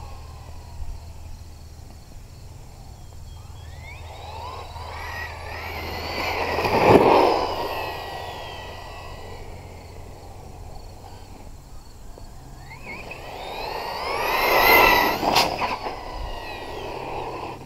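JLB J3 Speed brushless RC truck making two fast passes, the whine of its motor and the hiss of its tyres swelling as it approaches and fading as it goes away. The first pass is loudest about seven seconds in and the second about fifteen seconds in.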